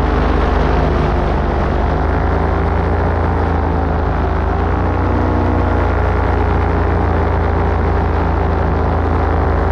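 Paramotor engine and propeller running steadily in flight, its pitch easing slightly about halfway through, over a heavy low rumble.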